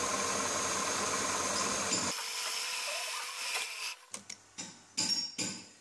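Small lathe spinning an engine valve while it is polished with fine emery paper: a steady grinding hiss with a thin whine. About two seconds in the sanding sound drops away to a quieter hum, and several short knocks follow near the end.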